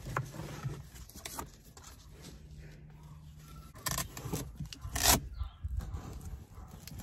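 Handling noise as a vanity mirror is strapped onto a car sun visor: elastic straps and plastic rubbing and scraping against the fabric visor, with scattered small clicks. The loudest is a short sharp scrape about five seconds in.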